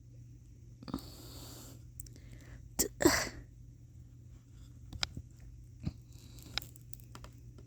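Small plastic clicks and taps from fiddling a tiny ring into a Nendoroid figure's hand, with a breathy exhale about a second in and a short, sharp breathy vocal burst about three seconds in.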